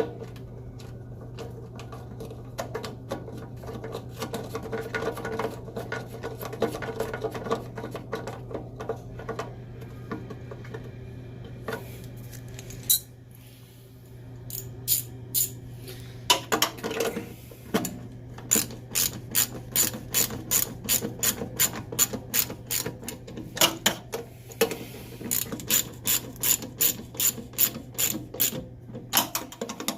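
Hand ratchet wrench clicking as it tightens the mounting bolts of a dishwasher booster heater, in runs of sharp clicks about two a second with short pauses, after some lighter clicking and rubbing of the bolts being started. A steady low hum runs underneath.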